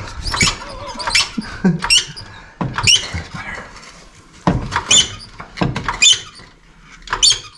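Trolley jack squeaking in short, sharp, high-pitched chirps at irregular intervals as its long handle is twisted and levered, with the car's exhaust resting on the jack.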